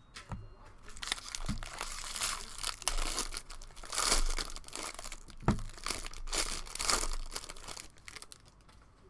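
Foil wrapper of a 2019 Bowman Draft baseball card pack being torn open by hand, crinkling and rustling for several seconds with a few sharper cracks, dying away near the end.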